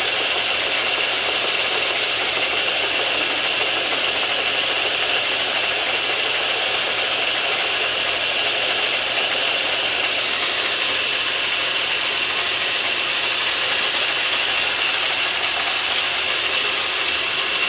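Metal lathe running steadily with a continuous high whine as the tool takes a final facing pass across a brass piston.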